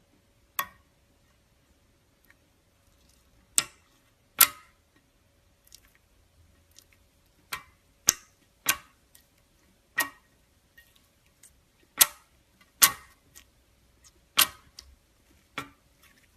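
Slime popping: about eleven sharp pops at uneven intervals, each bursting crisply and dying away quickly, as air pockets burst while the slime is pressed and stretched.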